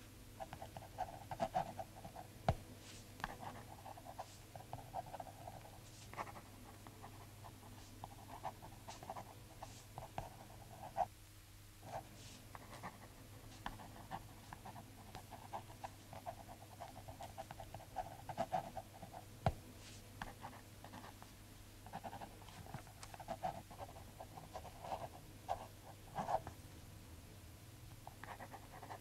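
Pen scratching across paper in short strokes and runs of writing, pausing briefly partway through, over a low steady hum.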